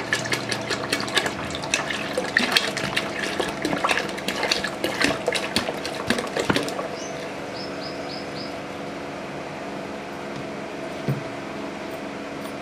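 7 Up poured from a plastic bottle into a pot of milk, splashing and fizzing with dense crackling. The pour stops about seven seconds in.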